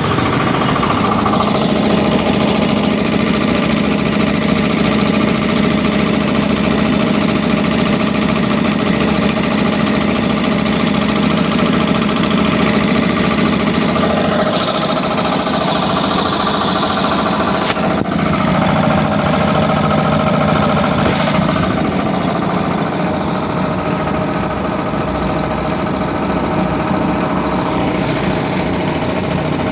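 A 3 HP Puma 3065 piston air compressor running steadily, pumping air into its tank with a constant mechanical clatter and hum. About 18 seconds in, the hissing top of the sound cuts off suddenly while the pump keeps running.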